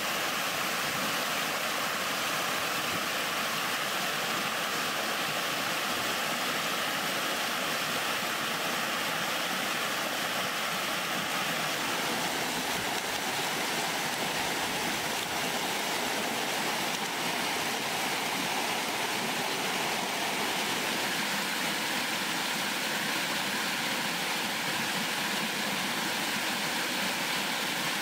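Waterfall pouring over rocks: a steady rush of falling water, its tone shifting slightly about twelve seconds in.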